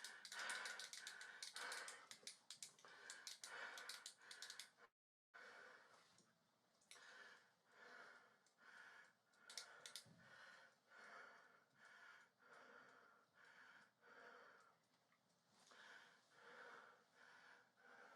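Near silence in a small room, with faint soft sounds about once or twice a second. The sound cuts out completely for a moment about five seconds in.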